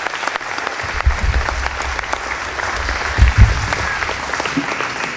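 Audience applauding steadily, with a low thump about three seconds in.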